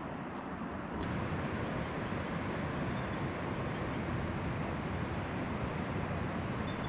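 Wind buffeting the microphone: a steady rushing rumble with no pitch, stepping up a little about a second in, with a small click at that point.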